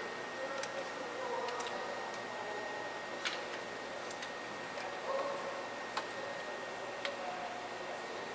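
Scattered light clicks and taps as plastic pipe fittings and tubing are handled and fitted, about seven at uneven intervals, over a steady hiss with a faint high steady tone.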